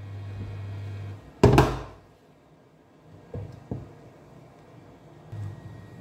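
Glass pot lid set down onto a steel cooking pot with one sharp clank about a second and a half in, followed by two light knocks as it settles; a low hum stops just before the clank.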